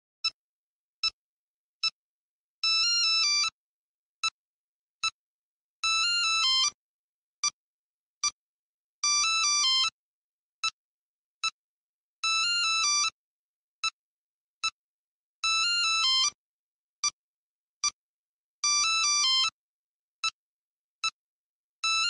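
Electronic phone ringtone looping: short high beeps about three-quarters of a second apart, every third one replaced by a rapid warbling trill of alternating tones lasting about a second, the cycle repeating about every three seconds.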